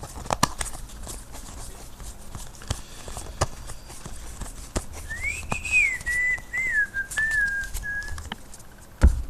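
Trading cards being handled, with light scattered clicks. About five seconds in, a person whistles a short wavering tune of a few falling notes for about three seconds.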